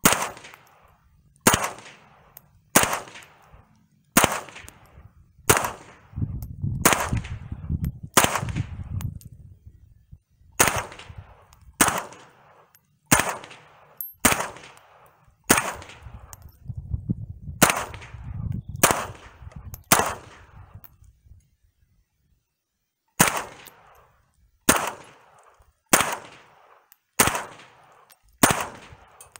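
Smith & Wesson M&P 15-22 semi-automatic rifle firing .22 LR Remington Golden Bullet rounds: about twenty single shots at a steady pace of roughly one every 1.3 seconds, with a pause of a few seconds near the end. Every round cycles through with no misfeed or failure to extract, the sign that the new Volquartsen extractor is working.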